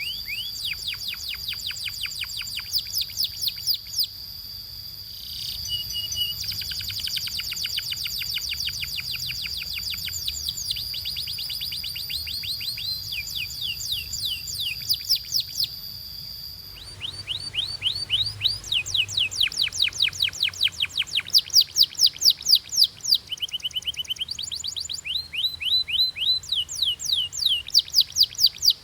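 Domestic canary singing in long rolling trills: rapid runs of quick downward-sweeping notes repeated many times a second, changing speed and pitch from tour to tour. A high steady whistled tone sits behind the trills for the first half and stops abruptly about 17 seconds in, after which the trills come louder.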